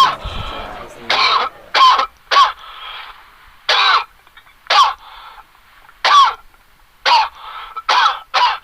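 A person clearing their throat again and again, about ten short, voiced ahems in quick succession.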